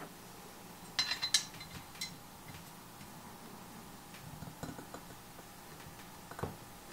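Light metallic clinks and taps of small parts on a bare Ford Duratec aluminium cylinder head as valve stem seals are pressed onto the valve guides by hand. A quick cluster of clinks comes about a second in, with a few fainter taps later.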